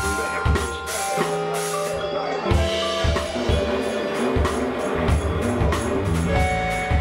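Live band playing: a drum kit keeps up a beat of repeated hits under bass and sustained keyboard tones.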